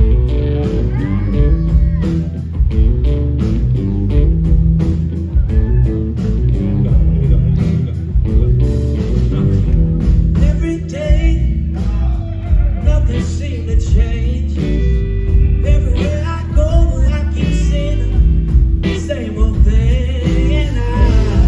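A live blues-rock band playing loud: electric guitar, bass guitar and a Gretsch drum kit, with a man singing into the microphone.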